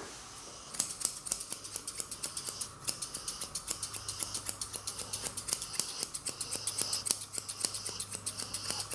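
Thinning shears snipping a small dog's fur in a fast, even run of crisp clicks, about four or five a second, starting about a second in.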